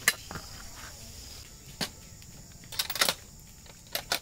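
Sharp clacks and taps of a bundle of shock-corded tent poles being handled, a handful of separate knocks with the loudest cluster about three seconds in, over a steady high-pitched background drone.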